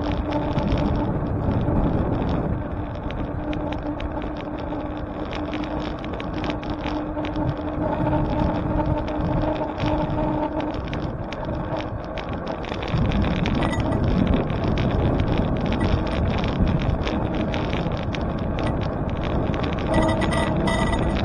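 Wind buffeting the microphone and tyre and road noise from a moving bicycle in city traffic, a steady low hum for about the first half, and heavier rumble from about 13 seconds in.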